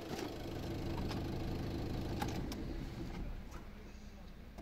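Ford Focus 1.6 TDCi four-cylinder diesel idling, heard from inside the cabin, then switched off about three seconds in.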